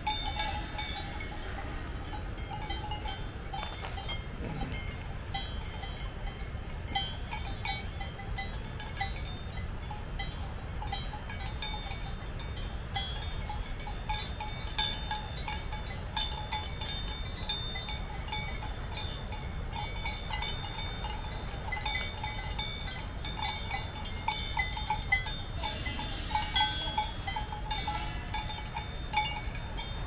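Cowbells on grazing cows clanking irregularly and ringing, over a steady low rumble.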